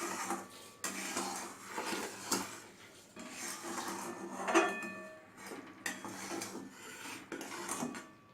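A metal spoon scraping and clinking against a kadhai of finished jaggery syrup, in irregular strokes, with one sharper ringing clink about halfway through.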